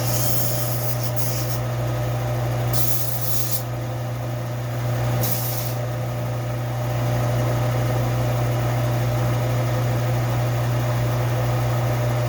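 A steady low machine hum runs throughout. Over it come a few short, hissy scrapes of sandpaper rubbing rust off a steel adze blade, in the first half.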